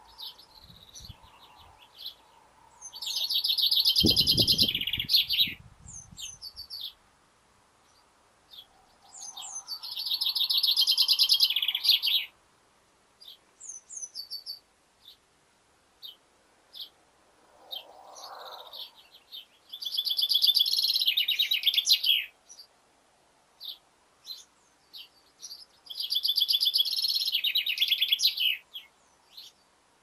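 Male common chaffinch singing: four song phrases, each a fast trill of two to three seconds that drops in pitch at its end, with short single chirps between them. A brief low rumble about four seconds in.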